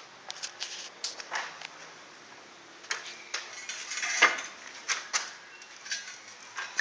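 Irregular sharp clinks and knocks of metal being handled, a dozen or more, the loudest about four seconds in.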